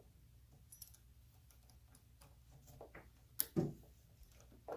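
Faint light clicks and ticks of a metal door latch being handled and slid into the bore in the door's edge, with a sharp click and then a knock about three and a half seconds in.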